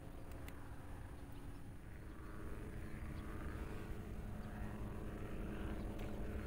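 Steady low drone of a distant engine, with a faint hum of several steady tones, growing slightly louder about halfway through.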